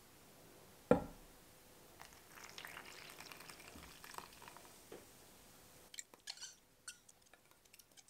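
Yeast-and-sugar liquid pouring from a glass measuring cup into flour in a stainless steel bowl, followed by a silicone spatula scraping out the cup in a run of short scrapes and taps. A single sharp knock about a second in is the loudest sound.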